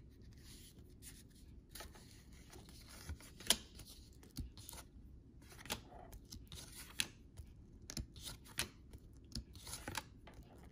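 Trading cards being handled and flipped through by hand: quiet rustling of card stock broken by scattered sharp flicks and snaps, the sharpest about three and a half seconds in.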